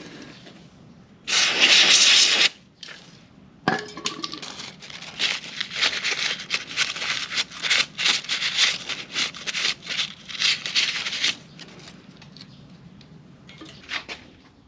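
A loud hiss lasting about a second, then a click, then a fast run of short rubbing or scrubbing strokes for about seven seconds that stops abruptly, with a couple of faint scrapes near the end.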